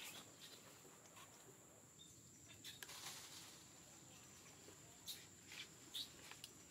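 Near silence: faint outdoor ambience with a steady high-pitched whine and a few scattered short, high chirps or clicks, mostly in the second half.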